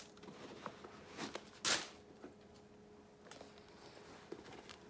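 Handling noise from a sneaker being turned over in the hands: short rustles and light knocks, the loudest a brief rustle about a second and a half in, over a faint steady hum.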